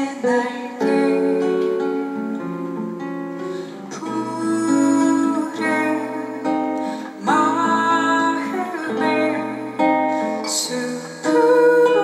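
Live indie band song: strummed acoustic guitar with a woman singing lead.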